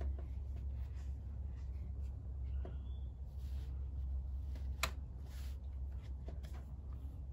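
A single rifle shot from a Savage 93R17 in .17 HMR, heard as one sharp crack nearly five seconds in, over a steady low rumble.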